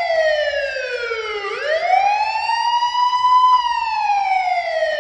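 Siren wailing: one strong pitched tone that slides down, swings back up over a couple of seconds, then slides down again.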